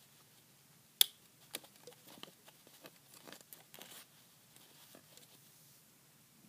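Fingers stretching a rubber band over the pegs of a plastic bracelet loom: one sharp click about a second in, then scattered small clicks and rustles that stop about five seconds in.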